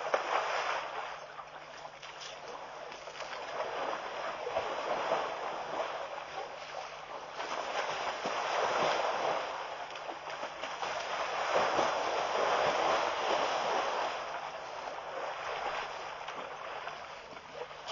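Wind gusting across an outdoor microphone: a rushing noise that swells and fades every few seconds.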